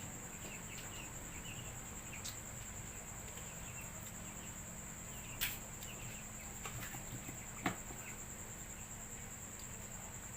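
Steady high-pitched insect chirring, with two short sharp cracks about five and a half and nearly eight seconds in, from crab shell being broken open while eating crab claws.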